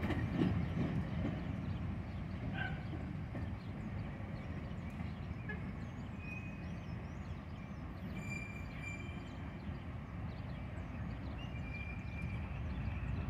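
Low rumble of a pair of GE C36 diesel-electric locomotives hauling a single flatcar away, growing fainter over the first few seconds. Faint bird chirps are scattered throughout.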